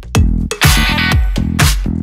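Background electronic dance music with a steady beat and a heavy bass line.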